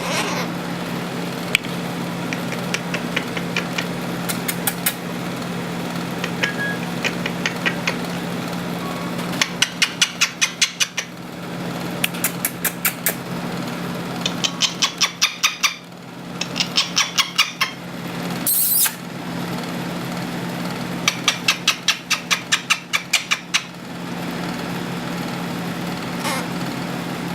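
Pet bird making several runs of rapid clicking calls, each run lasting a second or two, with a brief high squeak near the middle. Under them runs the steady hum of an air conditioner.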